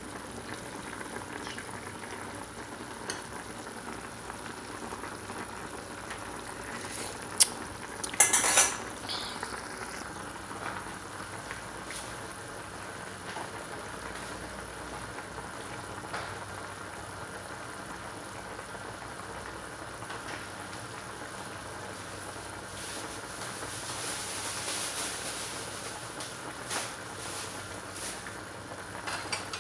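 Pot of chicken tinola soup boiling hard, a steady bubbling hiss. A few sharp metal clinks about seven to nine seconds in, a spoon against the pot.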